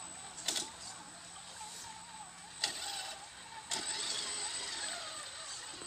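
Scale RC crawler's electric motor and gears whining, the pitch rising and falling with the throttle as it drives into a shallow stream. There are a few sharp knocks, and from about two-thirds of the way in a rushing hiss as the water is churned.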